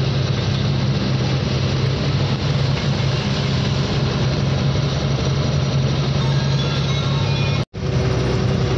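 Cab of a loaded goods lorry cruising on a highway: the diesel engine drones steadily under road and tyre noise. The sound cuts out for an instant near the end, then resumes.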